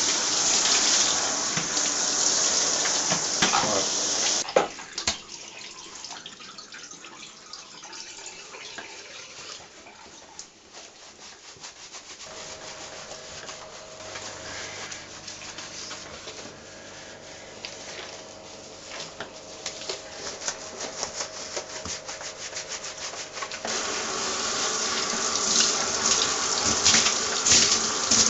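Handheld shower head spraying water onto a wet Labrador's coat, cutting off about four seconds in. A long quieter stretch follows of hands rubbing and lathering the wet fur, and the spray starts again near the end.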